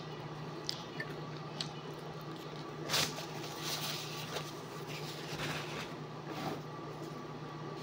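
A person eating flatbread and chicken close to the microphone: soft squishy chewing and mouth sounds with a few small clicks, and a louder rustle of food being handled about three seconds in, over a steady low hum.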